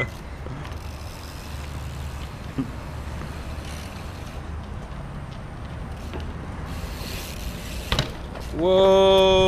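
Steady low rumble of street traffic. About eight seconds in, a single sharp clack as a BMX bike lands a drop off a ledge, then a loud, long held shout of "wooow".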